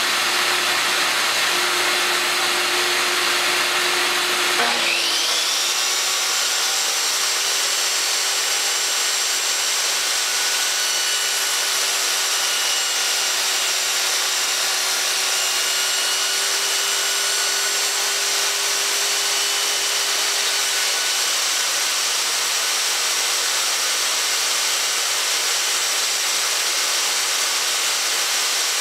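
A steady rushing machine noise runs throughout. About four and a half seconds in, a DeWalt table saw's motor starts with a quick rising whine that levels off high, and the saw then runs steadily at speed.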